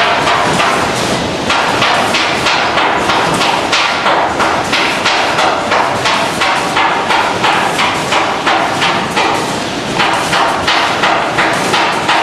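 Automatic packaging-line machinery running, a steady mechanical din with a fast, fairly regular clacking, about three strokes a second.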